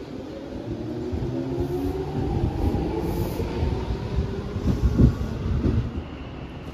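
Electric train running, with a motor whine that shifts in pitch over a heavy wheel rumble and a few knocks. The sound drops off about six seconds in.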